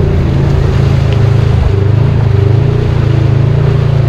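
Off-road ATV or side-by-side engine running steadily while riding the trail, its pitch dipping slightly and rising again about two seconds in.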